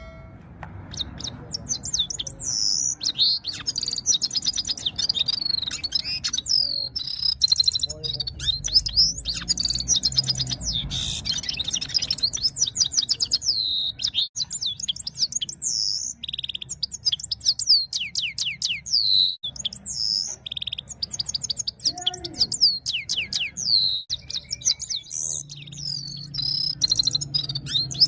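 Goldfinch singing a long, fast twittering song of rapid trills and chirps, delivered in the style of a red-fronted serin's song, with a few short breaks.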